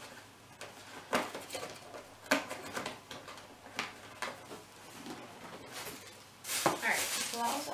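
Hands handling cardboard and plastic packaging: scattered taps, clicks and rustles, with a sharper knock about two-thirds of the way through. A voice with a sliding pitch starts up just at the end.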